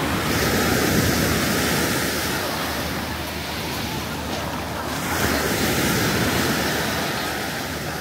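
Sea waves breaking and washing up the beach, swelling twice, the second surge about five seconds after the first.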